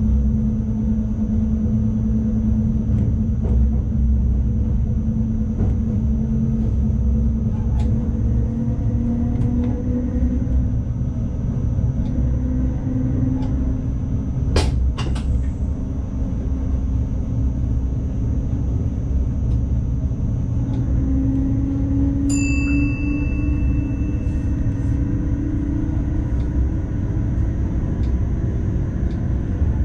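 NS ICMm (Koploper) electric train running, heard from the driver's cab: a steady rumble of the train on the track with a humming tone that slowly drifts in pitch. Two sharp clicks come around the middle, and a short ringing ding sounds about two-thirds in.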